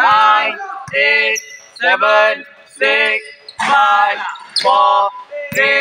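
A man's voice calling out a countdown of the remaining seconds, one drawn-out number about every second, with a basketball bouncing on the court a few times between the calls.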